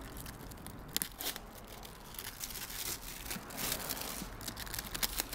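Plastic film wrapping being peeled and torn off a plastic box, crinkling and crackling irregularly, with a sharp snap about a second in.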